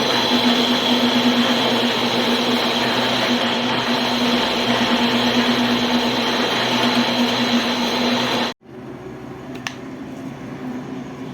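An electric power tool running steadily with a loud whirring hum. It cuts off abruptly about two-thirds of the way through, and a quieter steady motor hum follows with a single tick.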